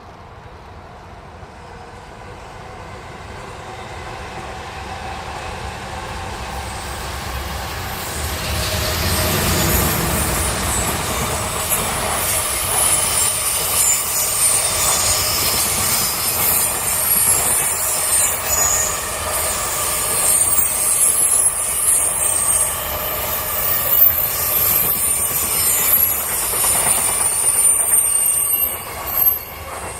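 A train approaching and passing close by on the rails, with high-pitched wheel squeal through most of the pass. The sound builds over the first several seconds and drops off sharply near the end.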